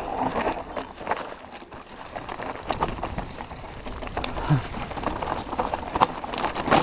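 Mountain bike riding down a loose, rocky trail: tyres running over stones and the bike rattling, with many sharp knocks as it hits rocks.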